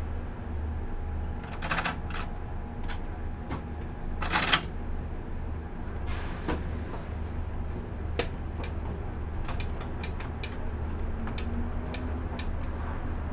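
Low steady hum of a ship-to-shore container crane's machinery, heard in the operator's cab. Scattered sharp clicks and knocks sound over it, the loudest a little under two seconds in and just after four seconds.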